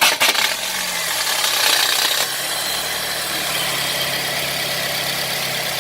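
Car engine that has just been cranked over running on at idle, a loud, even, noisy running sound with a steady low hum settling in about two seconds in. The start is offered as an example of a bad starter motor, one that is 'just loud'.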